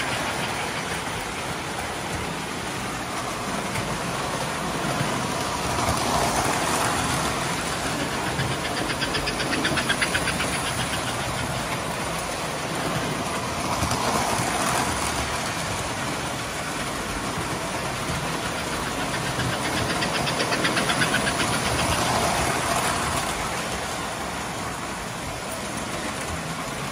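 Several toy electric trains running at once: a steady whir of motors and metal wheels on the rails that swells every few seconds as a train passes close, with quick runs of rapid clicking as wheels cross track joints and switches.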